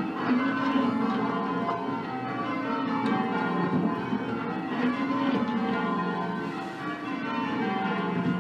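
Change ringing on a 13 cwt ring of ten church bells in F, a mix of Mears and Stainbank, Gillett and Johnston and Whitechapel castings, struck one after another in continuous rows with their tones overlapping. The deepest bell comes round about every two and a half seconds.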